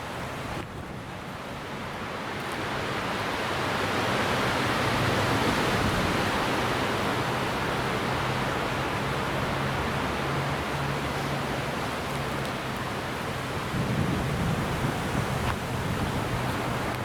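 Strong gusting wind rushing through trees and buffeting the microphone, building up over the first few seconds and staying loud, with a faint low hum underneath.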